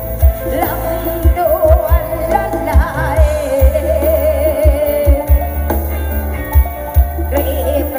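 A song with a sung melody, heavy bass and kick-drum hits, playing loud through a DIY sound system: a pair of OD15 subwoofer cabinets with a two-driver mid cabinet on top. The deep bass line sits at the bottom and drives the sound.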